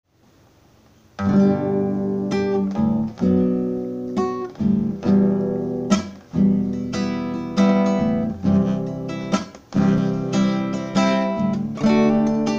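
Classical guitar strummed by hand, a steady run of chords that starts about a second in.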